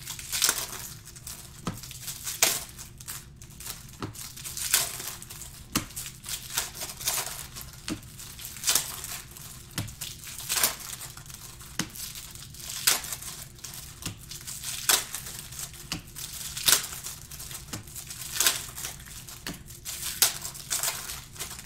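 Panini Prizm basketball card packs being ripped open one after another: foil wrappers crinkling, with a sharp tearing rip about every two seconds.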